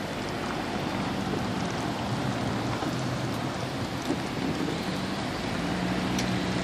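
Steady hiss of rain on wet pavement, with a faint low hum underneath.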